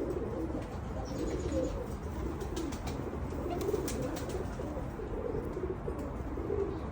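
Domestic pigeons (Pakistani Teddy breed) cooing in repeated low, warbling phrases, with a few faint clicks in the middle.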